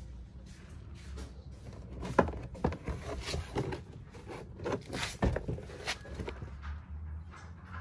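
Plastic door trim panel of a Naza Citra being worked loose from the door by hand: irregular plastic clicks and knocks with scraping, the sharpest about two seconds in and again around five seconds in.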